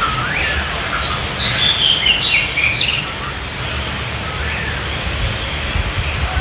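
Birds chirping a few short whistling calls in the first three seconds, over a steady low rushing noise.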